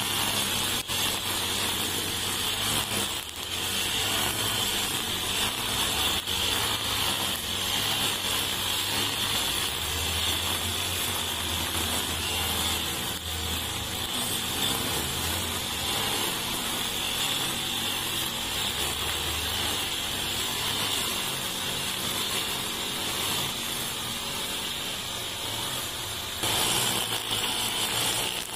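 Four-stroke petrol brush cutter with a nylon trimmer-line head running steadily at cutting speed, the spinning line whirring as it cuts grass. It gets a little louder near the end.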